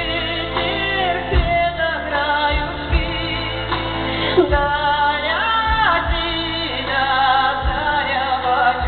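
A woman singing a song with instrumental accompaniment, her voice wavering on long held notes.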